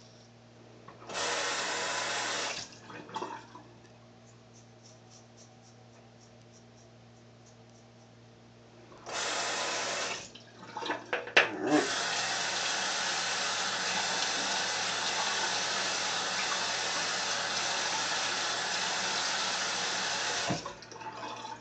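Bathroom sink tap running into the basin, turned on three times: two short runs of about a second and a half, then a steady run of about nine seconds from the middle on, with a couple of sharp knocks just as it starts.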